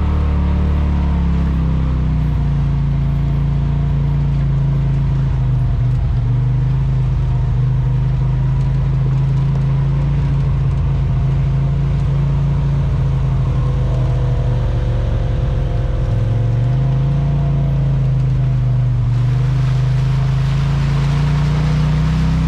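Side-by-side UTV engine running under way, a steady drone whose pitch eases down about two seconds in and climbs again later on. More hiss joins in the last few seconds.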